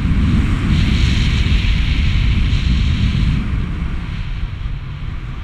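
Wind buffeting a handheld action camera's microphone in paragliding flight: a heavy low rumble throughout, with a stronger rushing hiss from about one second in until past three seconds.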